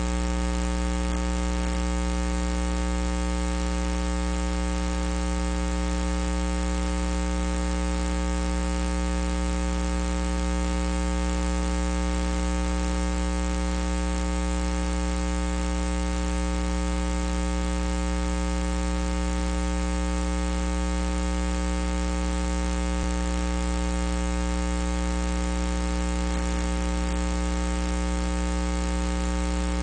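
Steady electrical mains hum and buzz with many overtones over a constant hiss, unchanging throughout.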